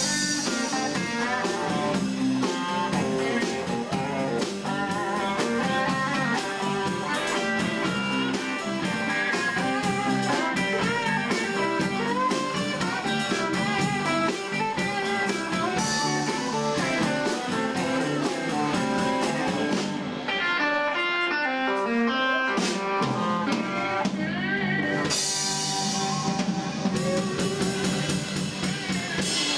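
Live rock band playing an instrumental passage: electric guitars over a drum kit keeping a steady beat, with no vocals.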